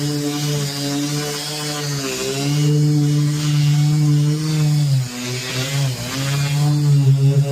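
Power sander running on a car's painted panel, sanding the topcoat: a steady motor hum whose pitch dips briefly twice as it is pressed into the surface.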